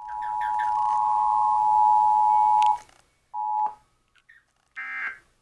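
Emergency Alert System attention signal: the steady two-tone beep sounding for under three seconds and cutting off, then a brief snatch of the same tone. Near the end comes a short buzzy burst of the digital SAME code, with no voice message between.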